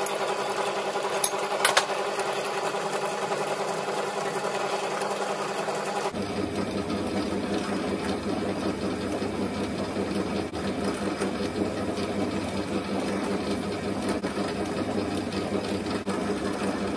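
South Bend lathe running slowly under power, its motor and gearing whirring steadily as a tapered thread is cut on a steel bar. A few sharp clicks come just under two seconds in, and about six seconds in the running turns rougher with a low hum added.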